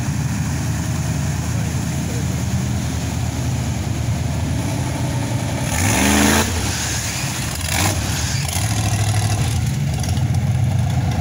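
Off-road mud truck's engine running through a mud pit, revving up sharply with a rising pitch about six seconds in and again briefly near eight seconds, then pulling steadily as the truck climbs out.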